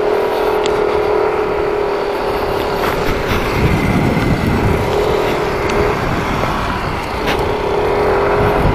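Motorcycle engine running at a steady pitch while riding, with wind rumble on the action-cam microphone that swells now and then.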